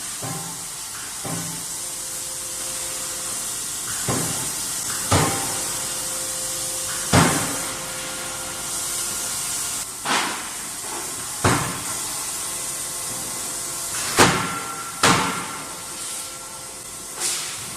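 Hydraulic forging hammer striking hot steel: about ten heavy blows at uneven intervals of one to three seconds, over a steady hiss.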